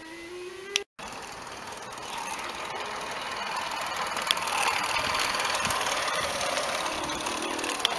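Live-steam model tram with a double-acting steam engine running on garden-railway track: a steady, fast mechanical chatter over a hiss, getting louder over the first few seconds as it comes closer. A snatch of violin music ends just before it.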